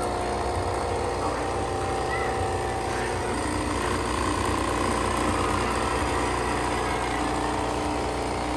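Nescafé Dolce Gusto capsule coffee machine running its pump with a steady buzz while it brews, pushing hot water through a capsule into a cup.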